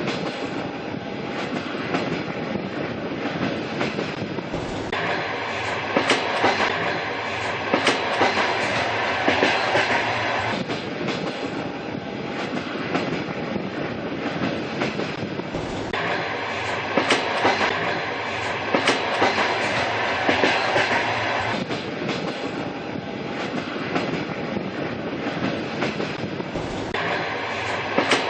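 Old-style train running along the track: a steady rumble with the rhythmic clickety-clack of wheels over rail joints, the tone changing abruptly every five to six seconds.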